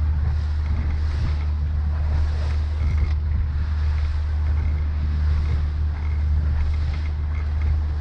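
Suzuki 140 hp outboard motor running steadily with the boat under way, a constant low drone, mixed with wind on the microphone and the rush of water off the hull.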